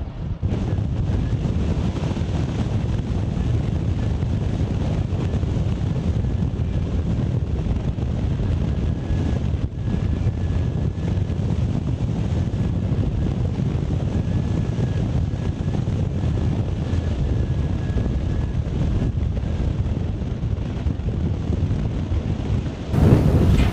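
Steady low rumbling noise of wind buffeting the microphone, with a faint thin high tone through the middle stretch.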